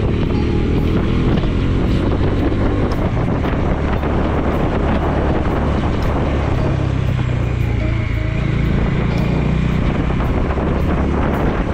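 Bajaj Dominar 400's single-cylinder engine running at a steady cruising pitch while the motorcycle is ridden along the road, with wind noise on the microphone.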